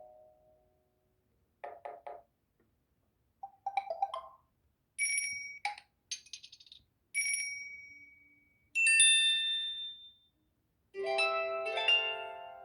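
Stock tones of a Samsung Galaxy Tab 3 (SM-T111) played one after another: about seven short electronic chimes and dings, each fading out, with brief silences between them. The last is a fuller chord.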